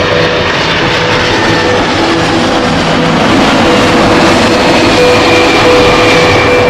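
Loud, steady roar of an aircraft engine, with a few steady tones that come and go.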